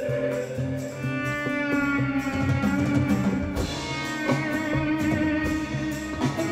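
Live band and orchestra playing a rock arrangement: a sustained melody line over a steady drum beat.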